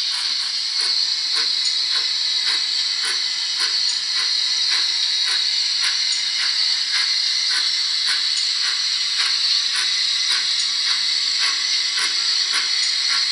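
Steam locomotive sound from a Zimo MX648R DCC sound decoder through a 28 mm speaker in the tender of a Hornby OO gauge GWR 28xx 2-8-0 model. It plays a steady steam hiss with slow, even exhaust chuffs, about two a second, as the model runs at low speed.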